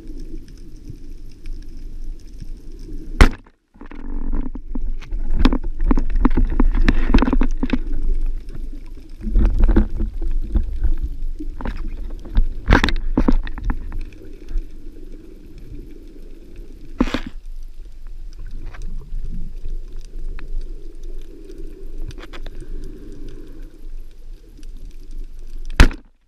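Underwater sound from a band-powered speargun's mounted camera: water rushing and bubbling, broken by sharp loud cracks of the speargun firing, the loudest about three seconds in and just before the end, with fainter clicks in between.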